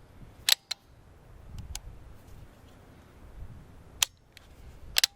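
A series of sharp metallic clicks from the GForce LVR357 lever-action rifle's action being worked: loud ones about half a second in, around four seconds and near the end, with fainter clicks between.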